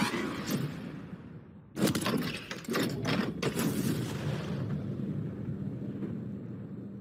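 Cinematic intro sound effects: a sharp hit at the start, then about two seconds in a sudden loud impact followed by several more hits, trailing off into a low rumble that slowly fades.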